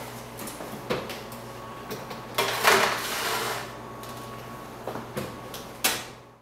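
Stainless steel wall oven door pulled open, a foil pan of steak slid onto the metal rack, and the door swung shut: a few clicks and knocks, a louder scraping stretch about a second long near the middle, and more knocks as the door closes near the end.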